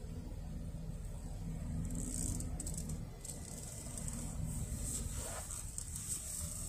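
Honda N-BOX kei car's small three-cylinder engine running at low speed, heard from inside the cabin as a steady low hum. Short bursts of high hissing come and go a few times.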